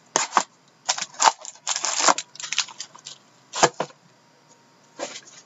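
Plastic wrap on a sealed trading-card pack crinkling and crackling in short irregular bursts as it is torn off, with one sharp knock a little past the middle.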